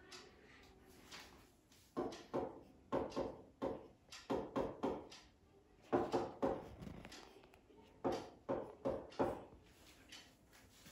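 Irregular light taps or knocks in four quick runs of about five each, starting about two seconds in and ending just after nine seconds.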